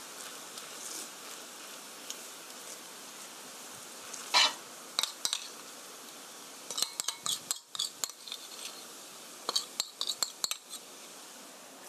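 Metal spoon clinking and scraping against a small ceramic bowl while scooping and spreading garlic sauce, over the steady sizzle of a potato pancake frying in the pan. One sharp clink a little over four seconds in, then a run of quick clinks in the second half.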